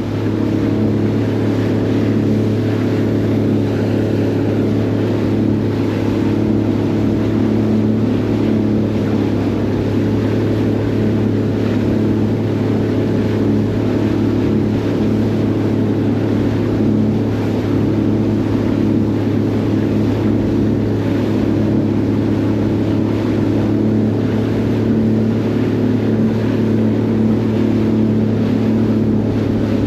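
Jet ski engine running at a steady speed, a constant drone that holds its pitch throughout.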